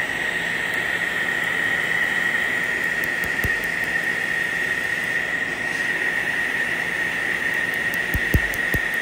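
Cold-air skin chiller blowing chilled air through its hose onto the skin: a steady, loud rush of air with a steady whistling tone in it. Faint quick high ticks come and go, thickening near the end, along with a few soft knocks.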